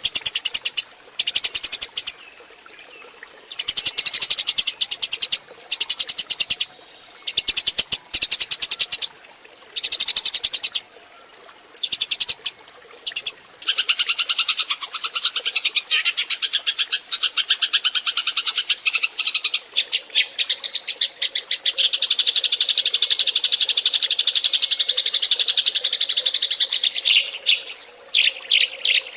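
Eurasian tree sparrows chirping: loud bursts of rapid chirps separated by short gaps, then from about halfway a long, unbroken fast chatter, ending in a few single chirps.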